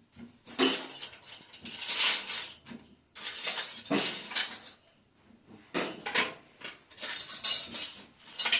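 Clattering and clinking of hard household objects in about five irregular bursts.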